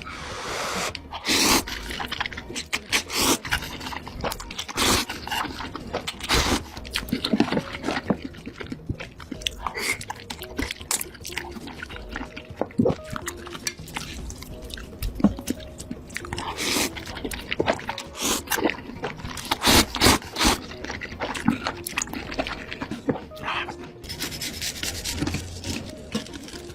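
Close-miked eating sounds: chewing with irregular, wet crunching and smacking noises, bite after bite.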